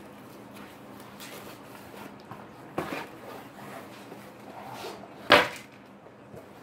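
Packaging being handled and items set down on a wooden table, with soft rustling, a light knock about three seconds in and a louder, sharp knock a little past five seconds.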